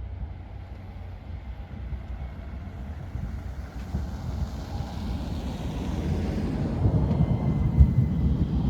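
A tram's low running rumble growing steadily louder as it approaches, with a faint high tone near the end and wind on the microphone.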